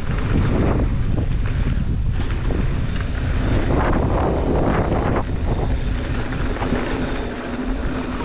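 Wind buffeting the microphone over the rumble of a mountain bike's tyres on a dirt trail, with many quick rattles and knocks from the bike. The noise eases near the end.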